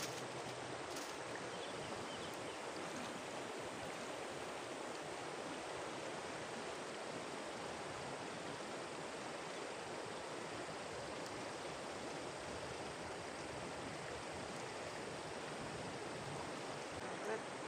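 Shallow river running over a stony bed: a steady, even rush of flowing water.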